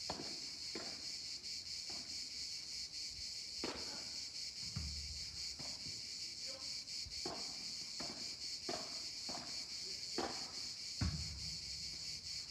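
Padel rally: the ball knocked sharply by rackets and off the court's glass walls, an irregular knock every second or so, over a steady high-pitched buzz of insects.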